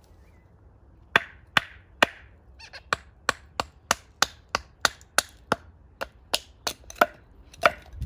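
Wooden baton knocking on the back of a blade to split a small stick on a stump chopping block: about twenty sharp knocks, roughly three a second, starting about a second in, the first few the loudest.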